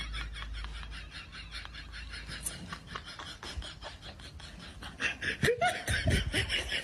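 Laughter in quick rhythmic pulses, fading down in the middle and growing louder again about five seconds in.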